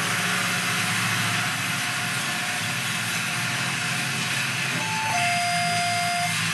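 Steady rushing background noise with a low hum underneath. About five seconds in, a short clear tone sounds, steps down in pitch and holds for about a second.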